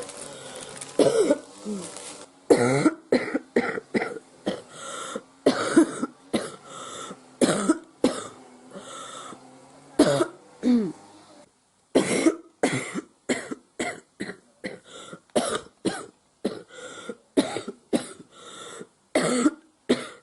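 A girl coughing over and over, sick: dozens of short, sharp coughs in quick fits of about two a second, some with a rough, throaty edge, with a brief break about halfway.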